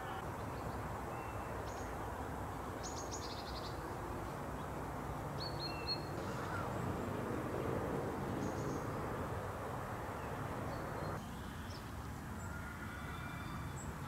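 Outdoor ambience: a steady low background rush with small birds giving short chirps now and then. The background drops a little about eleven seconds in.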